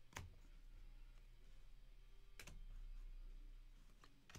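Near silence with a low room hum, broken by about four short, faint clicks as glossy trading cards are flipped and slid to the back of a stack in the hand.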